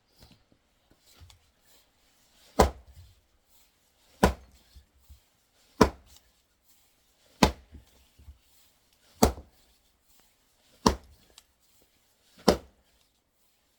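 Axe striking a knotty, forked firewood log, seven heavy blows at an even pace about every second and a half. The wood is hard to split because of the knot where two branches forked.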